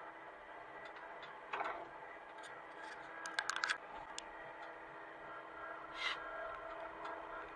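Hitachi mini excavator's engine running steadily, with a knock about a second and a half in, a quick cluster of metallic clanks around the middle, and a short scraping burst near the end, from the machine working.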